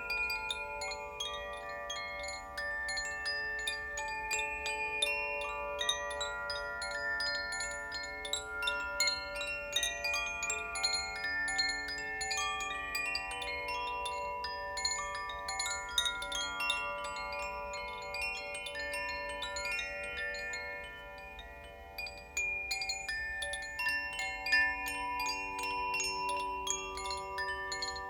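Koshi and Zaphir wind chimes being swung, their tuned rods ringing in a continuous shower of overlapping, sustained bell-like tones. The ringing dies down about twenty seconds in, then is struck up again a second or two later.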